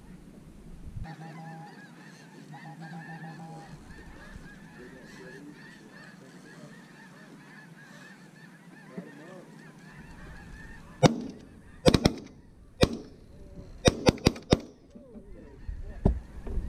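A flock of snow geese calling, a steady high chatter of honks. About eleven seconds in, a volley of about eight shotgun shots, fired in quick succession over some five seconds.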